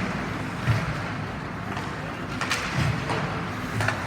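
Ice hockey rink sound: skates scraping and carving on the ice in short hissing strokes, with a sharp knock a little under a second in, over a steady low hum of the arena.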